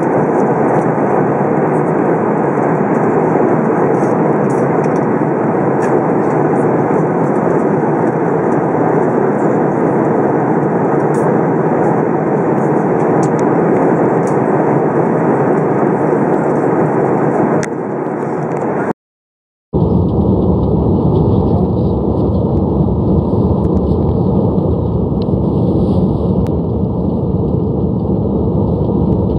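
Steady rushing cabin noise of a jet airliner in cruise flight, engine and airflow heard from inside the cabin. It cuts out for a moment about two-thirds of the way through and comes back deeper.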